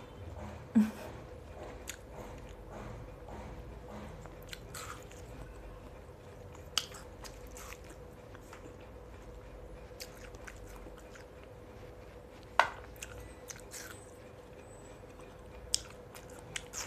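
A person biting and chewing watermelon close to the microphone, with wet mouth clicks and a few sharper, louder smacks scattered through. A faint steady hum sits underneath.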